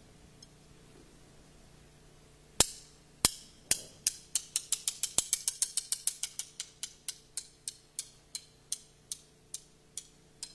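A train of sharp percussive clicks in the dance's music score. They start loud and widely spaced, quicken to about four or five a second, then slow again and grow fainter near the end.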